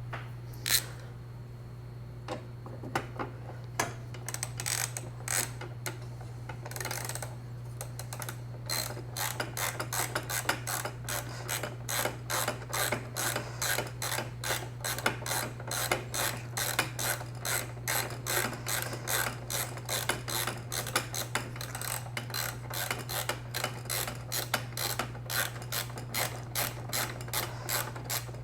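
Hand ratchet clicking as it is worked back and forth to back out screws or bolts. The clicks are sparse at first, then run steadily at about three a second.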